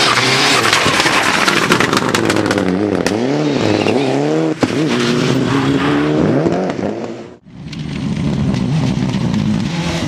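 Turbocharged engines of Mitsubishi Lancer Evolution rally cars at full throttle on gravel, the revs rising and falling quickly through gear changes and throttle lifts. A burst of sharp crackles comes in the first few seconds. The sound cuts out briefly past seven seconds, and a second Lancer Evolution's engine follows.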